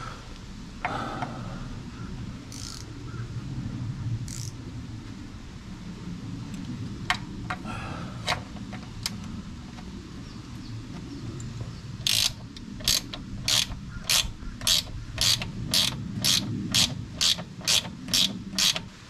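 Socket ratchet backing out a 7/16 nut: a few scattered clicks, then in the second half a steady run of ratchet clicks, about two a second.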